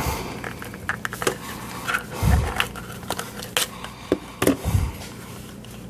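Clicks, taps and a couple of dull knocks from a plastic multimeter being handled and taken apart on a bench.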